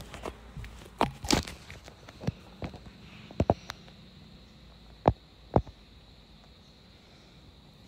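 A handful of sharp knocks and taps, about eight, scattered over the first six seconds, the two loudest close together a little after five seconds in. A faint steady high whine sets in about three seconds in.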